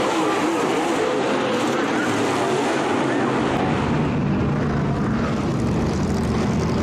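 Dirt late model race cars' V8 engines racing around a dirt oval, the engine note rising and falling as they go through the turns. About three and a half seconds in the sound changes to a lower, steadier drone.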